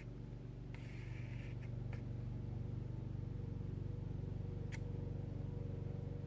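Quiet room tone with a steady low hum, a brief soft rustle about a second in and a couple of faint clicks.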